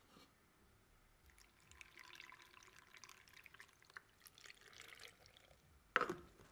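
Faint trickling and dripping of water, then a single sharp knock near the end.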